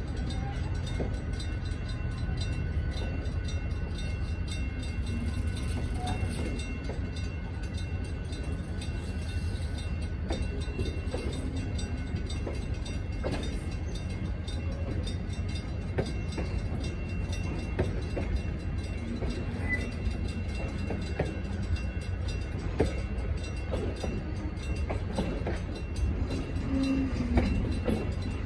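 Pere Marquette 1225 steam excursion train's cars rolling steadily: a continuous low rumble with scattered clicks of the wheels over the rail joints.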